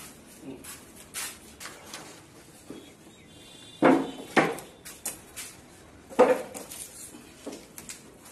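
Hand work on a wooden cabinet frame: scattered clicks and light knocks. Two sharp knocks come about four seconds in and another about six seconds in, as strips are pressed and fitted onto the partitions.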